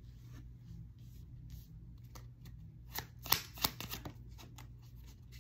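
Tarot cards shuffled by hand: soft rustling, then a quick run of sharp card snaps about three seconds in.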